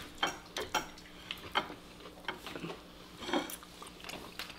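Cutlery clinking lightly against a plate or dish in scattered, irregular clicks, about three a second.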